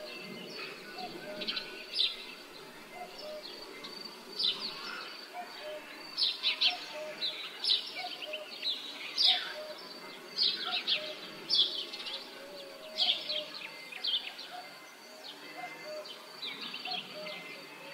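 Birds chirping in a village soundscape: many sharp, high calls, several with quickly falling notes, coming every second or so over a steady low background hum.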